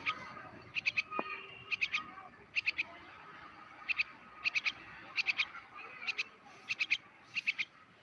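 High-pitched chirps in quick groups of three, repeating about once a second, over a faint steady high tone.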